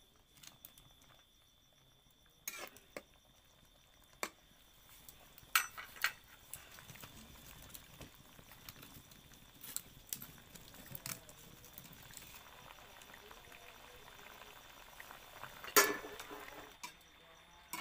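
Metal spatula clinking and knocking against a metal wok while a cauliflower and fish curry simmers, a scattering of separate clinks with the loudest near the end.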